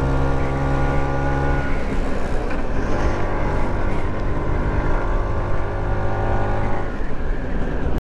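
LML Vespa NV scooter's two-stroke single-cylinder engine running steadily at cruising speed, with wind and road rush. Its note shifts about two seconds in and again near the end, and the sound cuts out for an instant just before the end.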